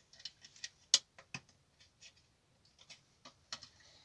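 Irregular small clicks and taps of hard plastic being handled: the plastic cab of a WPL B-24 GAZ-66 RC truck model turned and fitted in the hands, with the sharpest click about a second in.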